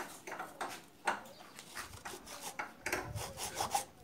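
A hand-held hacksaw blade scraping and cutting into the plastic case of a sealed dry-cell battery, in short, uneven strokes.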